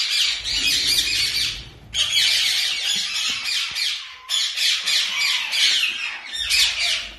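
Young lutino Indian ringneck parakeets squawking in a rapid, unbroken chorus, which breaks off briefly about two seconds and four seconds in.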